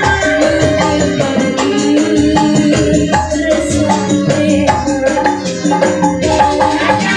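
Live band music with a steady percussion beat under a sustained melody line.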